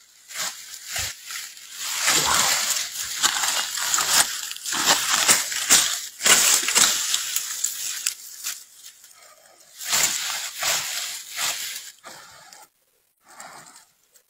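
Scuffling and crackling in dry pine needles and leaf litter as a squirrel and a snake wrestle on the ground, in bursts of noise that fade near the end.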